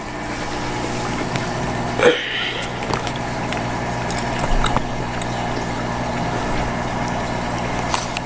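Aquarium filter pump running steadily: a constant hum with water noise. A brief louder sound stands out about two seconds in.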